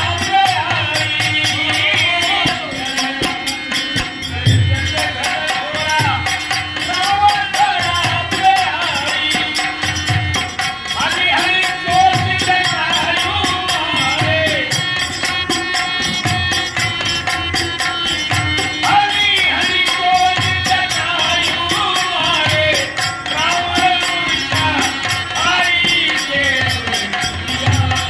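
A man singing a Bhojpuri folk song in long held, sliding notes, over drum and rattle accompaniment.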